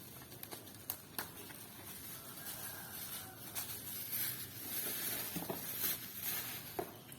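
Packaging being handled and opened by hand: scattered clicks and taps, with a stretch of rustling between about four and six and a half seconds in.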